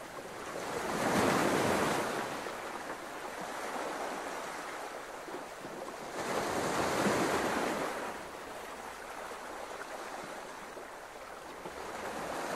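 Waves washing in: a rushing noise that swells about a second in and again about six seconds in, easing off in between.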